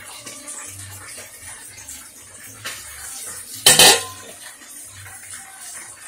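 A shallow stainless steel pan is set down on a granite countertop, giving one short metallic clatter a little under four seconds in.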